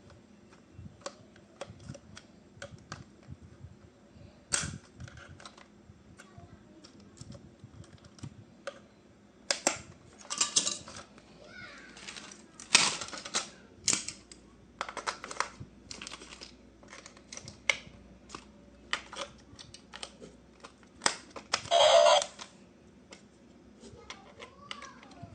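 Irregular clicks and taps of plastic toy parts and packaging being handled, broken by a few louder rustling or tearing bursts, the loudest lasting about a second near the end.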